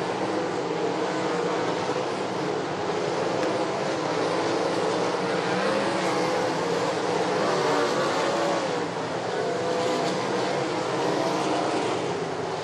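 Several race car engines running hard together on track, their pitch rising and falling as they lap.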